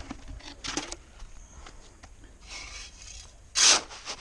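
Scraping and rubbing from screened-off gravel and a bucket being handled, with one short loud clatter about three and a half seconds in.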